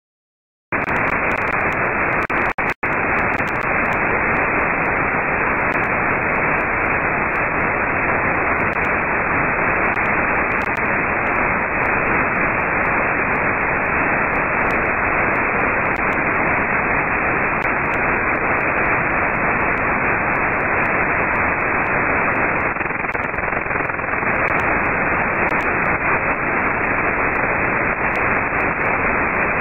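Receiver hiss from an RTL-SDR demodulating upper sideband off the Kenwood TS-2000's 75 MHz IF: steady static with no station in the passband, the highs cut off by the narrow sideband filter. It starts abruptly about a second in as the SDR is set running, with a couple of brief dropouts just after.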